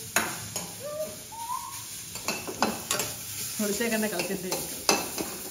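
Steel pot lid and utensils clinking several times over a pan of greens sizzling as they are sautéed. A toddler makes a few short high vocal sounds.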